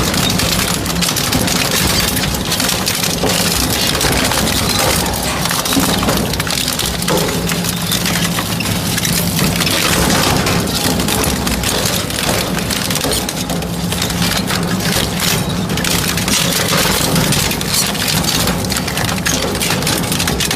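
Industrial metal shredder running: a steady motor hum under a dense, continuous crunching and cracking as scrap metal is crushed.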